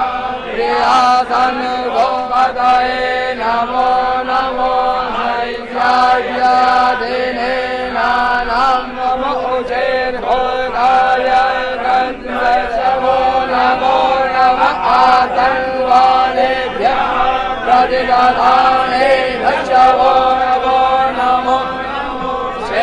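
Hindu priests' voices chanting Sanskrit puja mantras in a continuous recitation.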